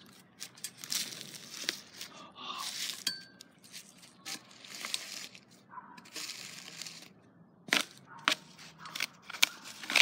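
A plastic pipe prodding and scraping rotten pumpkin pieces through dry grass and dead leaves. Rustling and crunching with irregular sharp knocks, the loudest in the second half.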